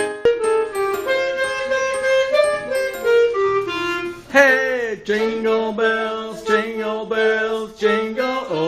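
Instrumental music: a melody of held notes on a wind or reed instrument. After about four seconds a sustained two-note accompaniment enters underneath.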